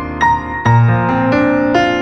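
Background piano music: a slow, gentle melody of single struck notes about every half second over held lower notes.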